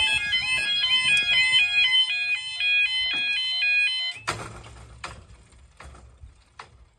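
Level crossing audible warning (yodel alarm): a repeating warbling call that steps between pitches, sounding while the barrier arms come down. It cuts off abruptly about four seconds in, followed by a short rush of noise and a few faint clicks.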